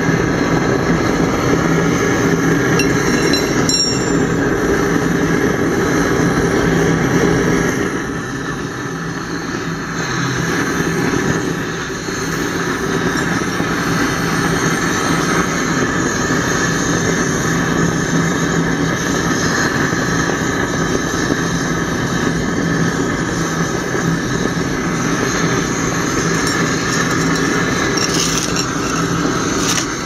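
Gas burner of a homemade foundry furnace firing steadily with a dense rushing sound while it heats a crucible to melt aluminium. The sound drops somewhat about eight seconds in and comes back up a few seconds later.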